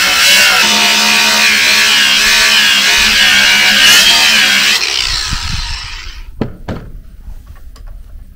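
Angle grinder running with its disc against the steel trailer tongue: a loud, steady grinding over a steady motor whine. It stops about five seconds in and winds down, followed by a couple of sharp knocks.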